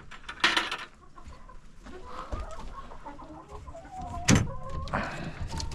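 Hens clucking in a coop. There is a rustling clatter about half a second in, and a sharp knock a little past four seconds, the loudest sound.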